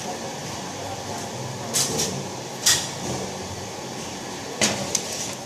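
A few short knocks and scrapes, four in all, over a steady background noise; the sharpest comes near the middle.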